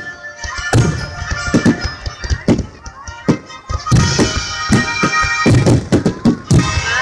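Aerial fireworks going off in quick succession, with sharp bangs and crackles that come thicker and louder about halfway through, over sustained music.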